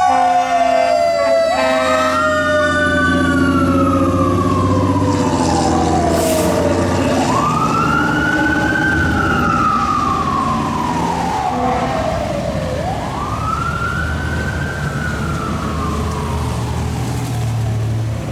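Fire engine siren wailing: three cycles, each rising quickly and falling away over about five seconds, over the rumble of the truck's engine.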